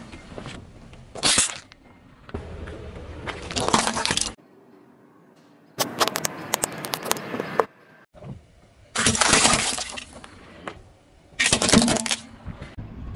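Car tyre rolling over and crushing small brittle objects, chocolate candies and plastic toys, on asphalt: a run of separate crunching and cracking bursts, about five in all, the one about six seconds in the longest and sharpest.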